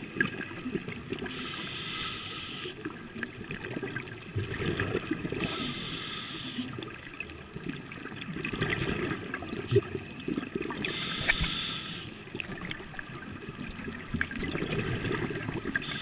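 Scuba breathing through a regulator underwater: a hissing inhale three times, each followed by the low bubbling rumble of exhaled air.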